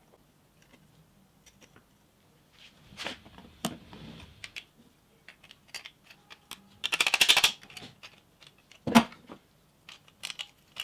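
Tools and circuit boards clicking and tapping on a wooden workbench. About seven seconds in, pliers working at a piece of circuit board give a short burst of rapid crackling, the loudest part, and about nine seconds in there is a single sharp knock.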